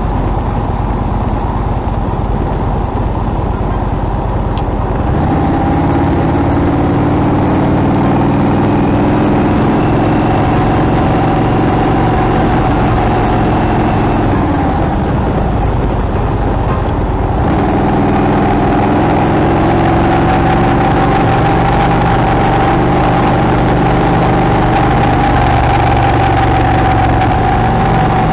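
Motorcycle engine running at speed, with steady wind rush. The engine note strengthens about five seconds in, falls away and drops in pitch around halfway through, then picks up again a few seconds later.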